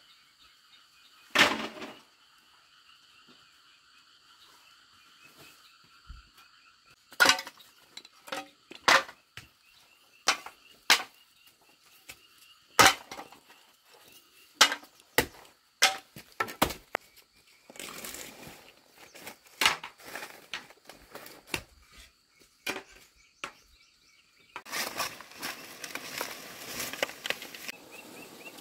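A long knife chopping into fallen banana stems and leaves: about a dozen sharp chops at irregular gaps. Near the end comes a steady rustling and scraping of dry banana leaves and trunk pieces being gathered and dragged.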